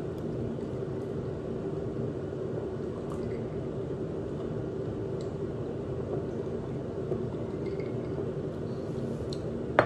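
Someone eating noodles quietly: a few faint, short wet mouth sounds over a steady low background hum.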